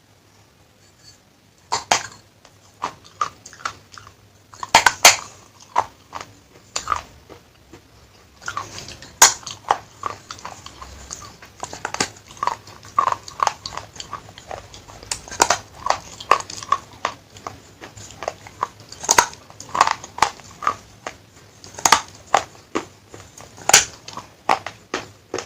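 Someone biting and chewing crunchy baked clay from a claypot handi. There are many sharp, irregular crunches and cracks, starting after a quiet first couple of seconds, with a short pause about a third of the way in.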